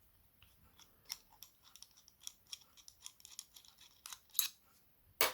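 Kasp 19070 padlock and small metal tools being handled: irregular light metallic clicks and scrapes, with one sharper click near the end.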